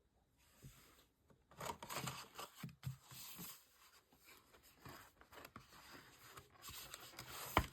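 Faint rustling and crinkling of paper and plastic as album contents are handled, likely the folded poster being taken out, with a sharp tap near the end.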